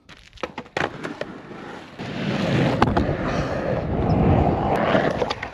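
Skateboard wheels rolling on an asphalt road, a steady rumble that comes in about two seconds in and lasts until near the end, after a few clicks and knocks at the start.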